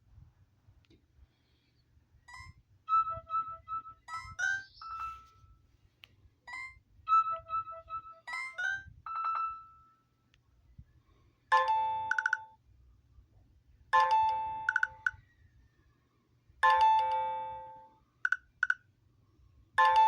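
Stock ringtones from an Alcatel Onetouch The Big Easy Flip phone, played through its small speaker: a short, high, tinkly melody played twice, then a different bell-like ringing tone that repeats about every two and a half seconds.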